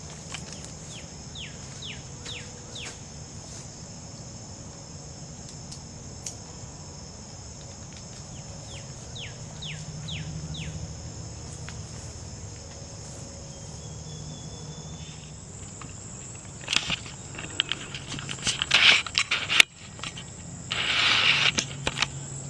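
Steady high-pitched insect drone of summer crickets, with a bird giving two runs of short falling whistled notes. In the last several seconds, loud irregular rustling and crunching, like steps through dry grass.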